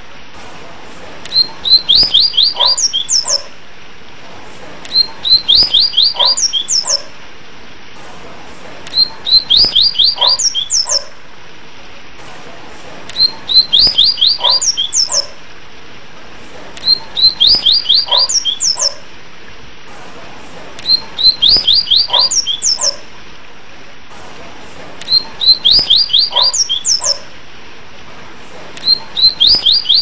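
Sporophila seedeater (papa-capim) singing its 'tui tui' whistled song: a phrase of quick, high, down-slurred notes lasting about two seconds, repeated about every four seconds. A steady faint hiss runs underneath.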